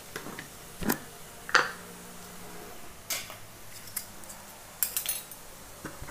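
Metal spoon clinking and tapping against kitchen utensils, a handful of separate light clinks with a quick run of them about five seconds in.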